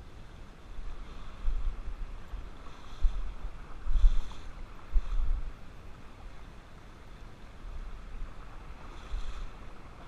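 River water flowing over a shallow gravel bed, with irregular low rumbles of wind buffeting the microphone several times.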